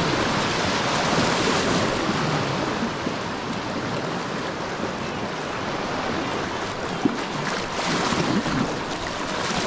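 Steady rushing of moving creek water around a kayak, mixed with wind on the microphone. A single sharp knock sounds about seven seconds in.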